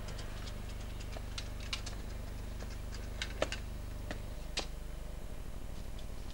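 A steady low hum with scattered, irregular faint clicks and ticks over it; the hum takes on a fluttering pulse about five seconds in.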